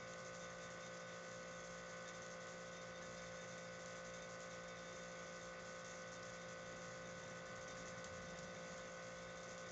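Steady electrical hum, several fixed tones over a faint even hiss, holding level with no change.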